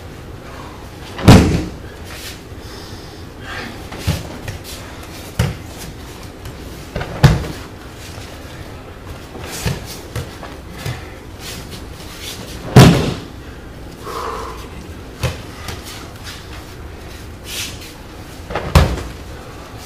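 A person being thrown and landing in breakfalls on a padded aikido mat: four loud thuds about six seconds apart, with lighter knocks and shuffling of bare feet on the mat between them.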